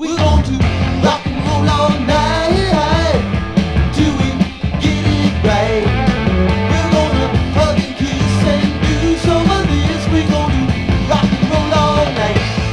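Rock song played from a vinyl record: full band with drums, bass and guitar, and a singing voice over it, coming back in at full level right after a brief break.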